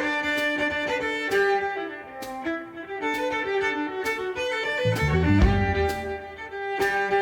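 Violin-led instrumental music: a lively melody of sharply attacked notes, with low bass notes coming in about five seconds in.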